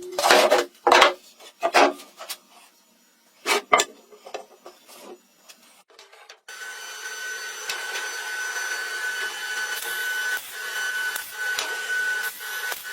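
Wood being worked with tools: several short, loud scraping strokes with pauses between them. About six seconds in the sound changes abruptly to a steady mechanical running noise with a thin high whine and scattered ticks.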